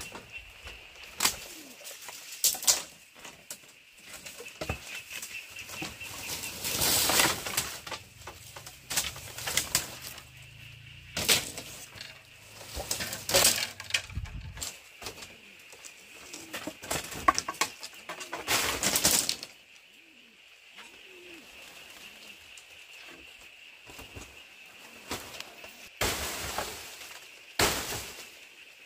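Dry palm-leaf thatch rustling and crackling and bamboo poles knocking as storm-wrecked roofing is handled and pulled apart, in several loud bursts with scattered knocks in between. A bird calls faintly in the background.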